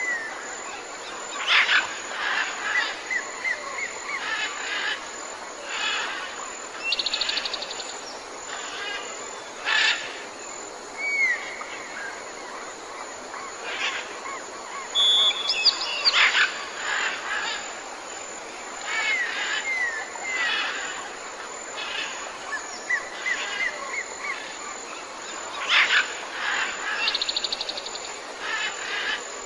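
Jungle ambience of many birds calling over a steady background hiss. There are short whistles that slide up and down, quick trills, a couple of fast buzzy rattles, and louder calls every few seconds.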